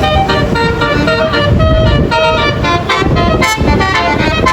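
Telolet basuri multi-tone air horn on a Sanjaya Trans bus playing a melody: a fast run of loud horn notes, the pitch changing several times a second.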